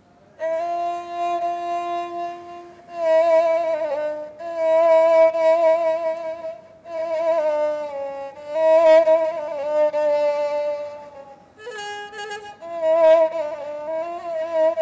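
Egyptian rababa (spike fiddle) bowed in a slow melody of long held notes with vibrato, played in short phrases with brief breaks between them.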